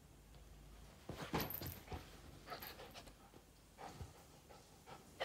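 Miniature poodle moving about on a bed: a few short, soft rustles and scuffs, the loudest about a second and a half in.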